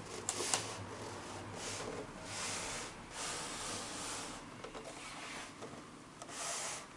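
Soft rubbing and brushing as a carbon-fibre front bumper lip is handled and turned over in the hands, in several faint swells, with a couple of light clicks near the start.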